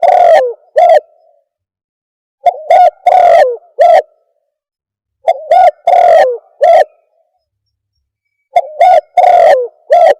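Spotted dove (terkukur) cooing in repeated phrases about every three seconds, each a few short coos around a longer one, played loud as a bird-catcher's lure call.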